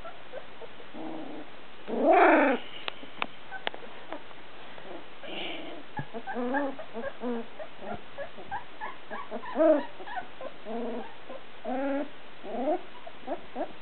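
Puppy whining and yipping in many short, pitched calls, the loudest about two seconds in and again near ten seconds, with a quick run of short yips through the second half.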